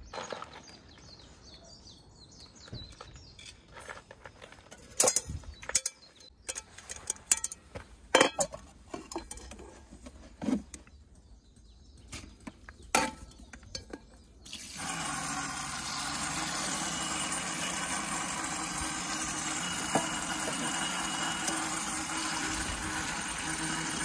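Metal camp cookware clinking and knocking a few times. About halfway through, water starts pouring and splashing steadily into an outdoor sink.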